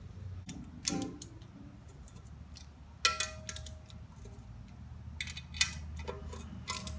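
Scattered metallic clicks and taps of hand tools on the chrome timing cover and its bolts, with one louder ringing clang about three seconds in.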